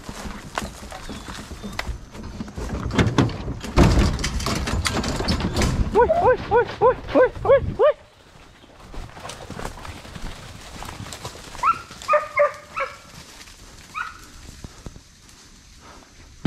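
A hunting hound barking in a quick run of yelps about six seconds in, over loud rustling and crashing through dry leaves and brush. A second short run of barks comes a few seconds later, then one more bark.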